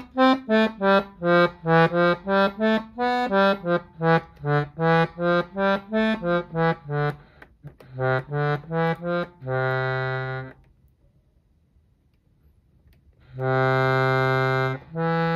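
Piano accordion played on the right-hand keyboard: a quick run of short, detached notes, about three a second, stepping up and down, then slower notes and a long held note. After a pause of about three seconds, two more long notes are held near the end.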